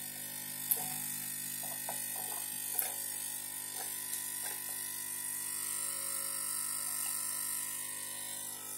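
Steady electrical hum and buzz from powered bench equipment, with a few faint light clicks, one just under a second in and another near three seconds in.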